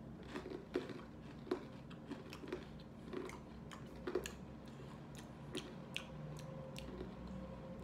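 People chewing small baked donut snacks, with irregular soft crunches and mouth clicks several times a second.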